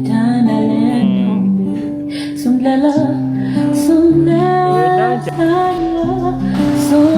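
Background music: guitar over held low notes, with a melody line that may be a singing voice.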